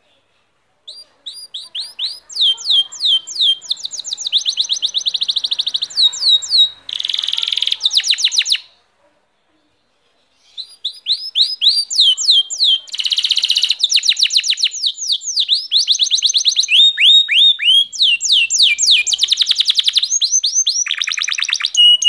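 Domestic canary singing: two long songs made of fast trills and series of repeated high, down-slurred notes, with a short break of about two seconds near the middle.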